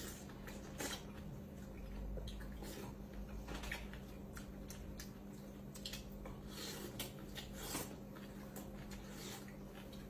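People eating fruit at a table: irregular wet squishes, smacks and small clicks of fruit being peeled, bitten and chewed, over a steady low hum.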